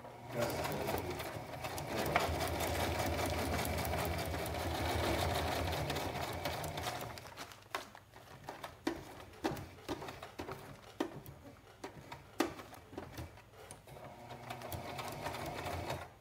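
Electric home sewing machine stitching a hem through Cuben fiber fabric, running steadily for about seven seconds. It then gives way to a string of separate clicks and a quieter stretch near the end.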